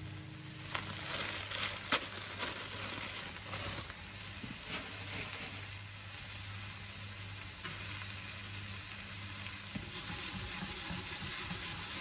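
Food sizzling in a frying pan, with a few sharp clicks of a utensil against the pan in the first few seconds.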